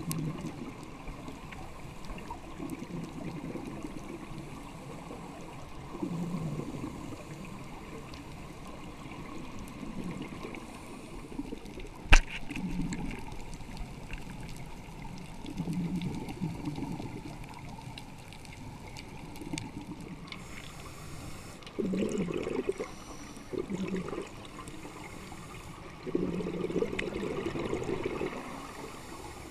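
Underwater sound of a scuba diver breathing through a regulator: bursts of exhaled bubbles gurgling every few seconds, with a single sharp knock about twelve seconds in.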